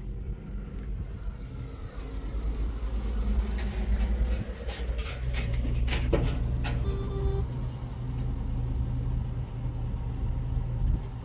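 A motor engine running steadily, with a handful of sharp clicks and knocks near the middle.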